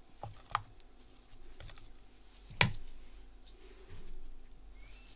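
Scoop clicking and tapping against the mold and mixing bowl as damp shower-steamer mix is scooped and packed into a mold: a few sharp clicks, the loudest about half a second and two and a half seconds in, with a soft rustle of the mixture near the end.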